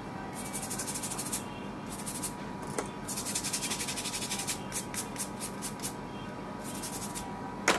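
Hands and small tools working on a phone circuit board at a repair bench: several irregular stretches of hissing, scratching noise, with a small click about three seconds in and a sharper one near the end, over a faint steady high whine from the bench equipment.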